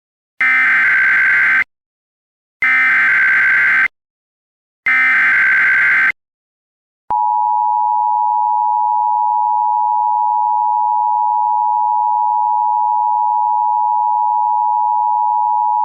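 Emergency Alert System alert tones: three SAME header data bursts, each a raspy digital warble a little over a second long with short gaps between them. About seven seconds in, the steady two-tone EAS attention signal (853 and 960 Hz sounding together) starts and holds.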